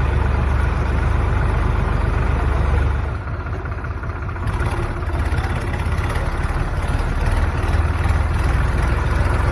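Farm tractor's diesel engine running steadily with a low, even chugging beat. It is briefly quieter about three seconds in.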